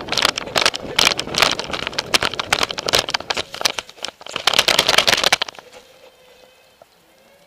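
Camera strapped to a running Doberman: loud, rapid, irregular knocking and rattling of the jostled camera mount with wind rush on the microphone as the dog runs. The noise stops about five and a half seconds in, when the dog halts in the vegetation, leaving only a quiet outdoor background.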